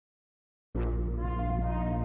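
Background music with held tones and a steady deep bass, starting abruptly about three-quarters of a second in after silence.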